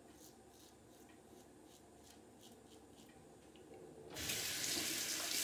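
Rockwell 6S safety razor scraping through lathered stubble in short, faint strokes. About four seconds in, the sink tap is turned on and water runs, much louder than the strokes.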